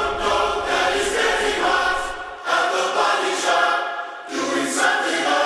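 Background music of layered voices singing held chords, in phrases that break off and start again twice.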